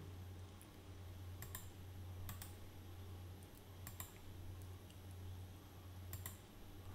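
Computer mouse clicking, faint: four separate clicks or quick double clicks spread a second or two apart, over a low steady hum.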